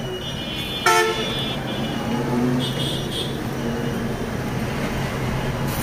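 Street traffic noise with a steady low engine hum, and a vehicle horn giving one short toot about a second in.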